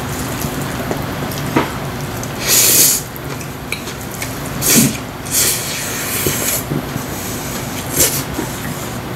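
Slurping of spicy mixed noodles sucked up off chopsticks, in short loud pulls about two and a half seconds in, around five to six seconds, and near eight seconds, with light clicks of wooden chopsticks against a stainless steel bowl, over a steady background noise.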